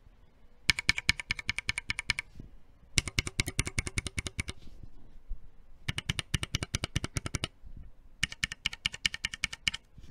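Mechanical keyboard switches on a hot-swap Corne split keyboard in a plate case being pressed rapidly in a sound test: four bursts of fast clacking, each about a second and a half long, with short pauses between. The switches under test are lubed NK Creams, C3 Kiwis and MX Black Hyperglides.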